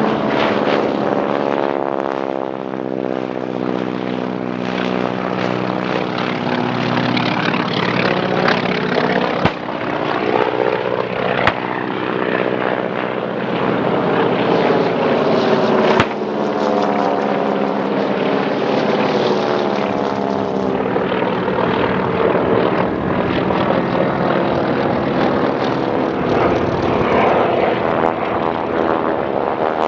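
Several propeller-driven piston-engine aircraft flying low passes, their engines running loud and steady with a sweeping, phasing sound as they pass overhead. Three sharp cracks stand out, about 9, 11 and 16 seconds in.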